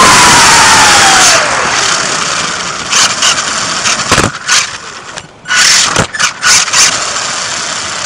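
Radio-controlled car's motor heard close up from a camera riding on the car. It runs loud with a whine falling in pitch, then drops back and surges in several short throttle bursts.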